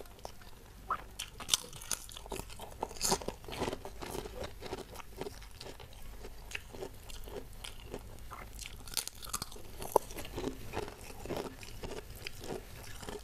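Close-miked eating: irregular crisp crunches from bites of kerupuk crackers between softer chewing, with a few sharper crunches.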